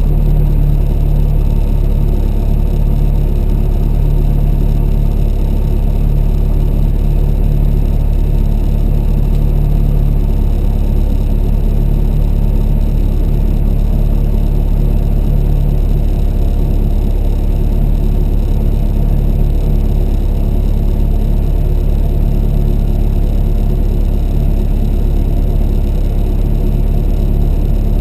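Ford Escort Mk1's Zetec four-cylinder engine running, heard on board from inside the car, loud and fairly steady with no clear rise or fall in pitch.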